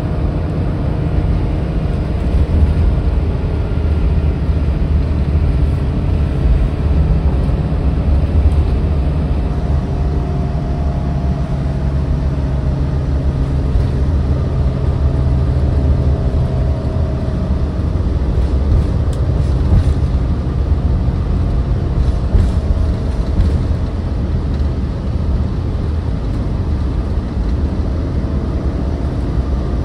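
Ride inside a moving city transit bus: a steady low engine and drivetrain rumble with road noise. A fainter drivetrain whine drifts in pitch and slides down through the middle, as the bus's speed changes.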